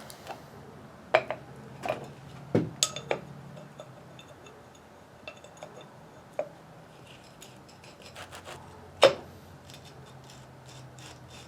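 Metal parts of a Warn VR8000 winch clinking and knocking as they are handled and set down, with rubbing and scraping in between; the sharpest knock comes about nine seconds in. A faint steady hum runs underneath.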